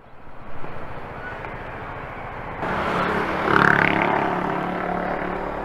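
A motor vehicle passing on the road: engine and tyre noise swell suddenly about three seconds in, peak a second later, then slowly fade.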